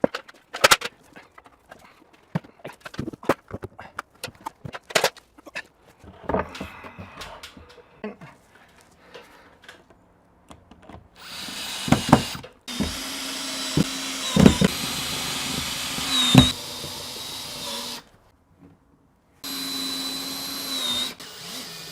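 Knocks and clicks of handling for the first ten seconds or so, then a power drill runs in two long bursts, its pitch dipping briefly a few times under load, while the clamp rack is being fixed to the wall.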